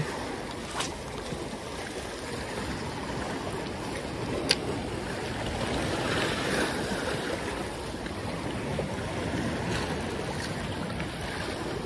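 Sea waves washing and surging against shoreline rocks, a steady rushing of water, with one sharp click about four and a half seconds in.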